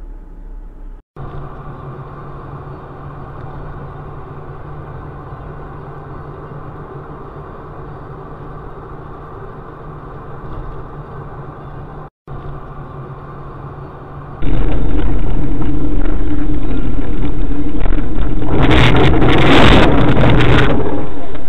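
Dashcam recordings of car cabin noise: a steady engine and road hum across several spliced clips, with brief dropouts where one clip cuts to the next. About 14 seconds in the sound jumps to a much louder, distorted level, and near the end a harsh noisy burst lasts about two seconds.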